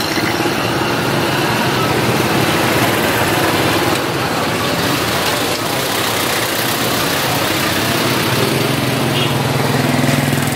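Vehicle engine running at low speed with street traffic noise, heard from the open back of a pickup truck. A deeper engine hum comes up near the end.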